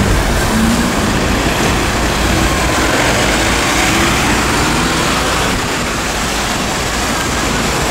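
Busy road traffic passing close by: the engine and tyre noise of vehicles driving past, a steady rumble.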